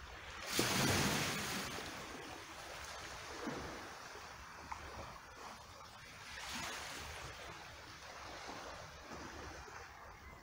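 Shallow seawater washing and sloshing among rocks and cobbles at the shoreline: a loud surge about half a second in that fades over a couple of seconds, then smaller washes twice more.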